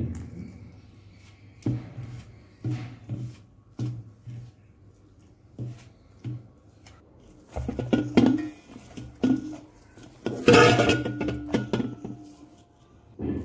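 Hand mixing and kneading flour and water into dough in a stainless steel bowl. The hand and bowl give repeated knocks and clinks of metal, about once a second at first, then busier and louder about eight to eleven seconds in.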